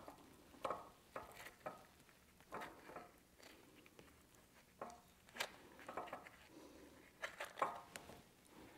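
Faint, scattered soft taps and scrapes of a metal spoon scooping cubed avocado flesh from its peel, with chunks dropping into a glass bowl.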